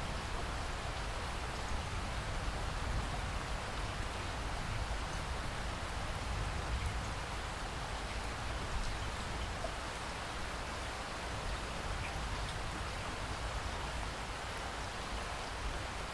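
Steady rain falling, an even hiss of drops with a low rumble underneath and a few faint single drop ticks.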